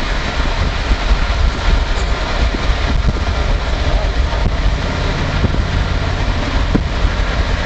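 Road noise of a car driving at interstate speed: a steady, loud rumble of tyres on pavement, heaviest in the low end.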